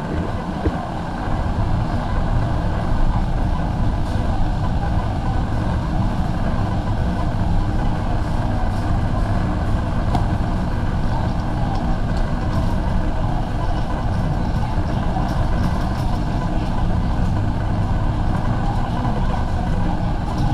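Steady background rumble of a busy warehouse store, with a faint steady hum and the low murmur of shoppers.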